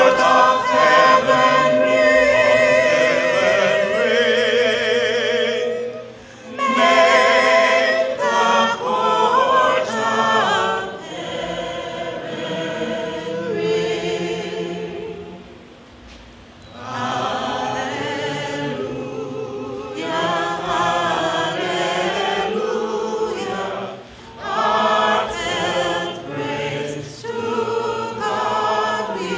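A small group of men's and women's voices singing together unaccompanied, a cappella, into microphones, with brief pauses between phrases.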